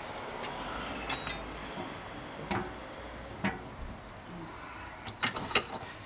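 Sharp metallic clicks and clinks of tools and small parts on a bicycle front wheel hub: a pair about a second in, single ones later, and a quick cluster near the end that rings briefly.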